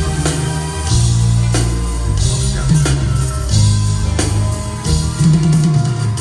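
Instrumental reggae backing from a live band: bass guitar holding long notes that change about once a second, with drum kit and guitar, and no singing.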